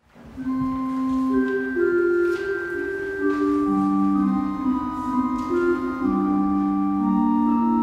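Slow instrumental intro music of long, overlapping held notes, fading in at the start.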